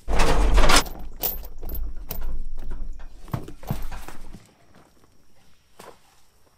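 Large used tire being handled off the back of a flatbed trailer: a run of knocks and thumps with a heavy low rumble that starts suddenly and stops about four seconds in, then a few faint knocks.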